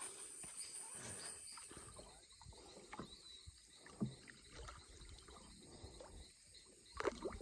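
Faint rainforest ambience: a steady high insect drone with scattered soft knocks and rustles, a sharper knock about four seconds in and a few more near the end.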